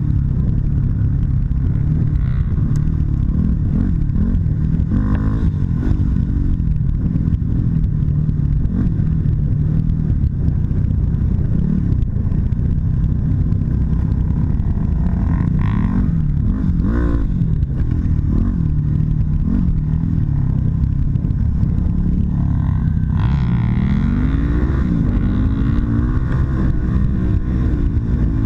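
Yamaha WR250R's single-cylinder four-stroke engine running on the move along a dirt trail, its pitch rising and falling as the throttle is worked, with a few sharper revs past the middle and near the end.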